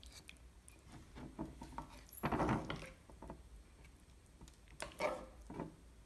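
A spoon being pushed through sauce-coated chicken feet on a plate: small clicks and scrapes of the spoon against the plate with sticky, wet handling noises, loudest a little past two seconds in and again about five seconds in.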